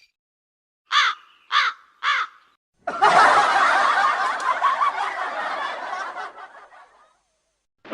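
Laughter sound effect: three short snickering laughs about half a second apart, then a few seconds of fuller laughter that fades out.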